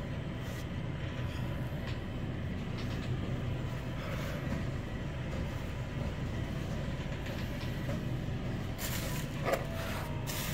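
A steady low mechanical rumble, with a short crackle about nine seconds in.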